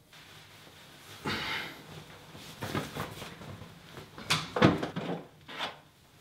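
Clothing rustling as a hoodie is pulled off over the head, then several sharp knocks and clatters as a mirrored bathroom cabinet door is swung open and toiletries are picked off its shelves.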